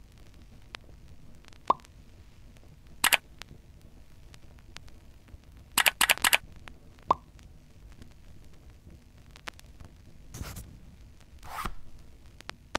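Scattered sharp clicks and short taps a few seconds apart, the loudest a quick cluster of three about six seconds in, with two softer, longer rustling sounds near the end, over a faint steady hiss.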